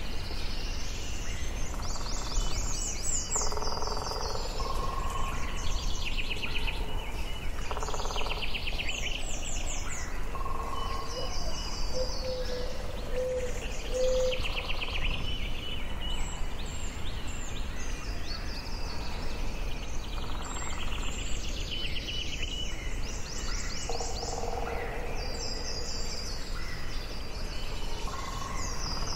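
Forest ambience: several songbirds singing and calling in repeated phrases every few seconds, over a steady background hiss.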